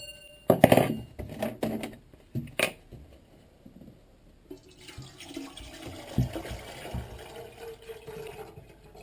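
Water pouring from a plastic container into a metal stovetop kettle, starting about halfway through, with a faint tone that rises in pitch as the kettle fills. Before the pour come a few sharp knocks and clatters of handling.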